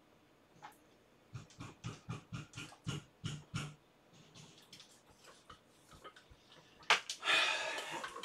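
Handling noise at a workbench as a multimeter and its test leads are fetched: a run of quick knocks and rattles from about a second in, then a sharp click near the end followed by about a second of rustling scrape.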